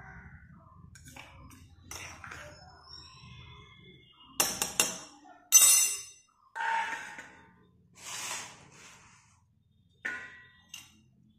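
Stainless steel plate being handled and set down on a hard floor: a series of sharp metallic clanks and clinks, some ringing briefly, the loudest about five to six seconds in.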